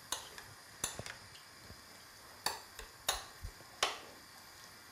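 A metal spoon stirring a chopped grilled tomato and pepper salad in a ceramic bowl, giving about half a dozen light, irregular clinks against the bowl.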